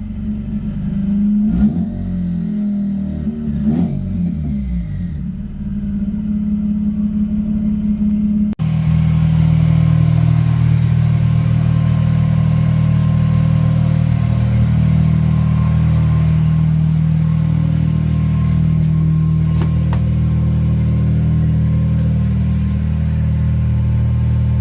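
Mazda RX-8's twin-rotor Wankel rotary engine revved briefly twice, its pitch rising and falling, then idling steadily while warming up.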